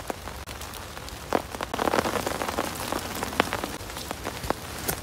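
Plastic tarp over a dugout shelter pattering and crinkling: a steady rain-like patter with many sharp ticks, and a louder burst of crinkling about two seconds in.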